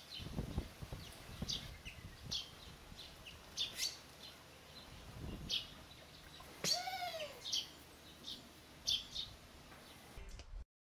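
Small songbirds at a seed-covered bird table giving short, high chirps, a dozen or so spaced irregularly. About two-thirds through comes one longer call that rises and falls. The sound cuts out just before the end.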